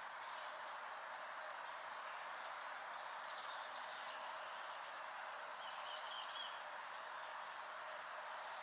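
Small songbirds calling with repeated high, short chirps over the first five seconds, and a brief trill about six seconds in, over a steady background hiss.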